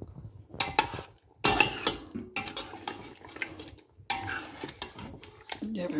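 Metal spoon scraping and knocking against a steel cooking pot as chicken pieces are added and stirred into the curry base. The clatter comes in a few separate bouts with short pauses between.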